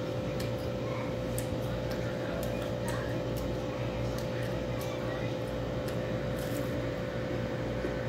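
Crisp crunches and clicks of someone chewing firm green mango slices, scattered irregularly, over a steady electrical hum with one constant tone.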